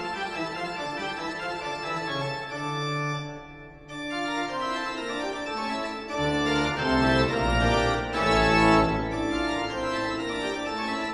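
Background music: a spooky organ-led tune, with a deep bass line coming in about halfway through.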